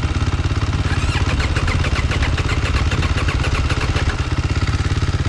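Motorcycle engine idling steadily, with a rapid clicking rattle over it from about one second in to about four seconds.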